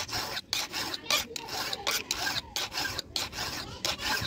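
Flat file rasping over the steel depth gauges (rakers) of a chainsaw chain on its bar, in quick back-and-forth strokes about two a second, lowering the gauges.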